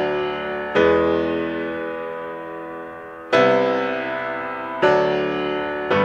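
Background music of slow chords, each struck suddenly and left to ring and fade, four new ones coming about every one to two and a half seconds.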